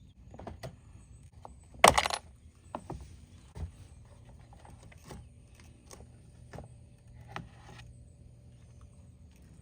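Small metal retainer clips being worked off the ends of a third brake light. There is one loud metallic clink about two seconds in, then a string of lighter clicks and taps.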